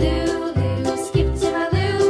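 Background music with a steady bass beat, about two beats a second.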